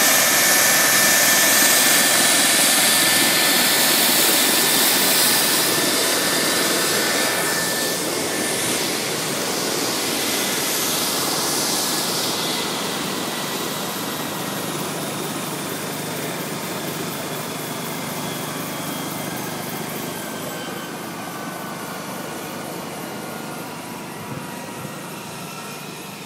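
Air-ambulance helicopter with its turbine engines and rotor running: a steady turbine whine over a loud rushing noise, growing gradually quieter.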